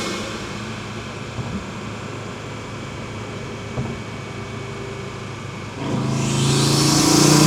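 Stage 1-tuned Audi TT RS turbocharged five-cylinder coming off a pull and settling to a quieter cruise. About six seconds in it pulls hard again, the exhaust tone rising with the turbo whistle building over it.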